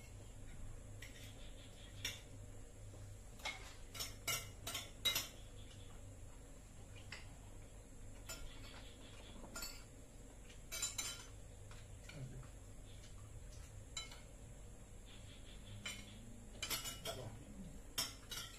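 Light, irregular clinks of cutlery against dishes during a meal. They come singly or in short clusters with pauses between, and the loudest group falls around four to five seconds in.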